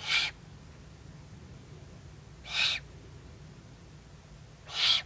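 Eurasian eagle-owl owlet giving short, raspy hissing calls, the food-begging call of a young eagle-owl: three hisses evenly spaced about two and a half seconds apart.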